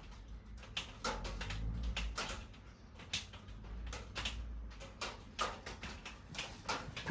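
Scattered soft clicks and small knocks, irregular and a few each second, over a low steady hum.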